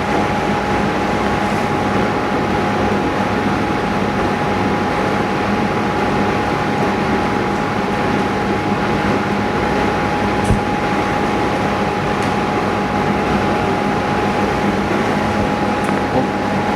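Steady mechanical running noise, a constant hiss with a steady whine and a low hum, from running equipment. A single short click about ten seconds in.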